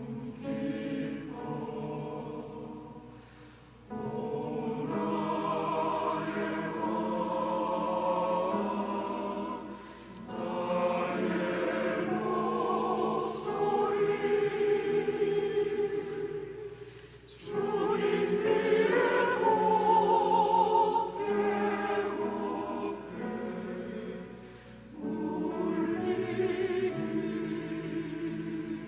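Church choir singing in sustained phrases, with short breaths between phrases.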